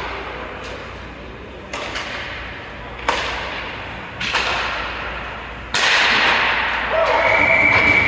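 Hockey puck and sticks in an ice arena: four sharp cracks of shots and passes, each echoing off the rink. A steady tone starts near the end.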